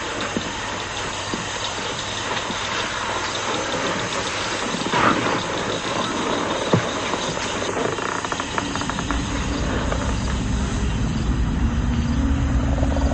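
Steady rushing noise from the film's soundtrack, with a few soft knocks around the middle. Low sustained music notes come in about two-thirds of the way through.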